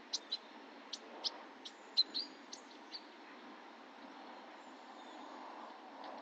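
Songbirds chirping: a quick, irregular series of short, sharp, high chirps for about three seconds, then they stop, leaving a steady low background noise.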